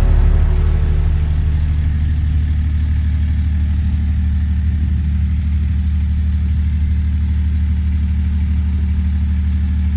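Peterbilt dump truck's diesel engine idling steadily.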